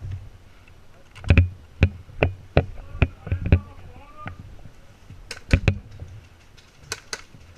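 Airsoft guns firing single shots: about a dozen sharp cracks at uneven intervals, in two bursts of shooting.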